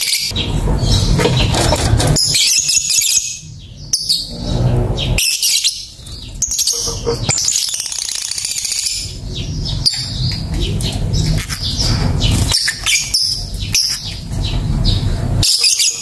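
Fischer's lovebird chattering in long runs of rapid, high-pitched chirps and trills, with short breaks about three and five seconds in.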